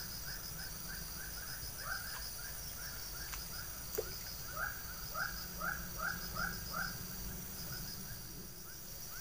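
A rapid run of short, falling animal calls, two to three a second, that stops about seven seconds in, over steady high-pitched insect chirring.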